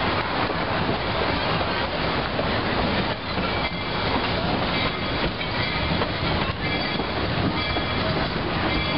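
Narrow-gauge train passenger car rolling along the track: steady running noise of the wheels on the rails, with scattered clicks over the rail joints.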